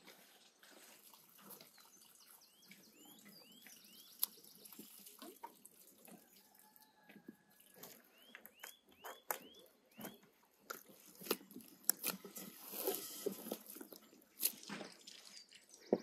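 Hands kneading and mixing food in enamel bowls: soft wet squishing with scattered clicks and taps against the bowls, a few of them sharp. A small bird chirps in two short runs.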